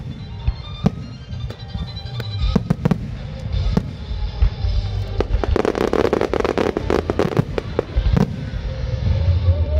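Aerial firework shells bursting one after another, with a dense spell of rapid crackling about halfway through.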